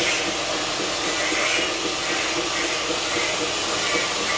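A steady hiss of rushing air, like a fan or blower, with gentle repeated swells.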